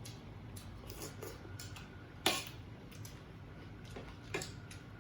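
Tableware clinking during a meal: scattered light clicks, with the sharpest clink a little after two seconds in and another just past four seconds.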